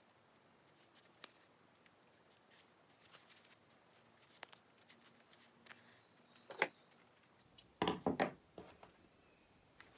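Faint handling sounds of hand stitching through the pincushion's fabric, then a sharp click about six and a half seconds in and a short cluster of knocks and clacks around eight seconds in as a pair of scissors is picked up and handled on the worktable.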